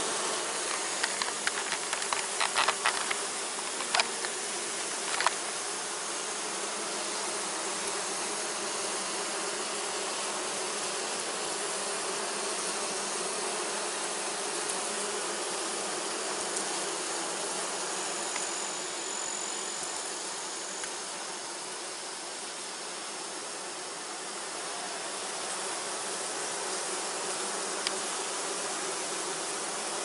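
Honey bees of an opened hive buzzing: a steady, dense hum of many wings. A few sharp clicks come in the first five seconds.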